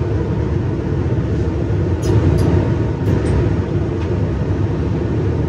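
Steady low running rumble of a regional train under way, heard from inside the driver's cab, with a few faint clicks about two and three seconds in.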